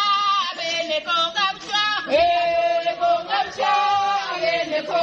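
A group of voices singing together, with long held notes, led by a woman's voice through a microphone.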